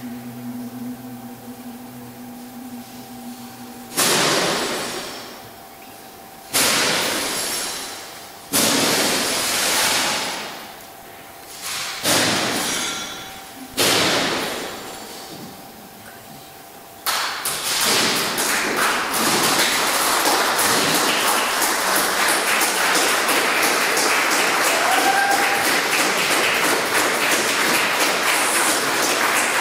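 A low steady drone, then five heavy booms about two seconds apart, each dying away slowly in a large hall. A dense crackling noise follows for the last dozen seconds.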